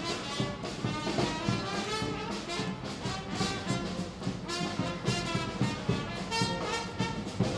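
Brass band playing, trumpets and trombones holding notes over regular drum hits.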